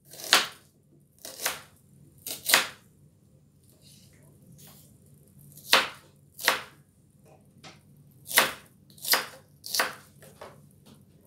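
Chef's knife slicing through a red onion and knocking on the cutting board in slow, uneven chops, about a dozen strokes, with a pause of a few seconds near the middle.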